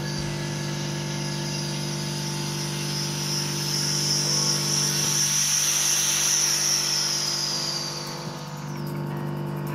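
Air hissing back into the VLTC 2511 vacuum leak tester's chamber as the vacuum is released. The hiss builds about two and a half seconds in, holds, then drops slightly in pitch and dies away near the end, over a steady low hum.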